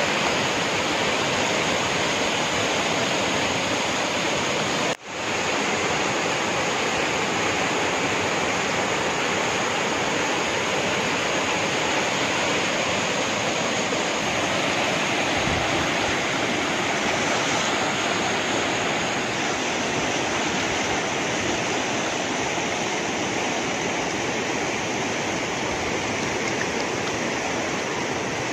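Water gushing out of a tunnel mouth and churning into a reservoir: a steady, loud rush. It cuts out for a split second about five seconds in.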